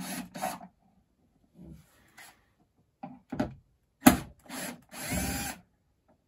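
Cordless drill/driver running in several short bursts as it backs screws out of a treadmill console's plastic back cover, with a sharp knock about four seconds in and the longest run near the end.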